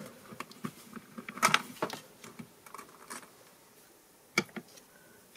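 Sporadic light clicks and taps of a plastic tray of finger-sponge ink daubers being handled as a sponge is pulled from it. There is a cluster of clicks a second and a half in, and a single sharp click about four seconds in.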